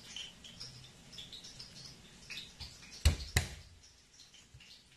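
Kitchen knife knocking twice on a plastic cutting board as garlic is cut, two sharp knocks about a third of a second apart a little past the middle, with faint high chirps in the background.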